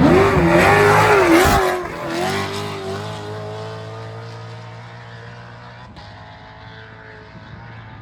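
Off-road race vehicle's engine revving hard and unevenly as it passes close by. About two seconds in it drops away sharply, then its note holds steadier while it fades into the distance.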